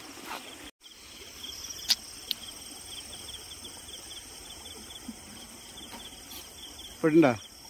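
Crickets chirping steadily in a fast, even pulsing trill, with two sharp clicks about two seconds in. Near the end a short, loud voice-like sound drops steeply in pitch.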